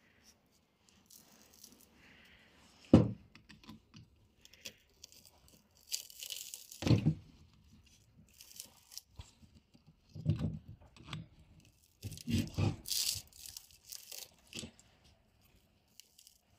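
A screwdriver prying and levering the copper windings out of a vacuum-cleaner motor's steel stator. The sound is a series of irregular clicks and knocks, the sharpest about three seconds in.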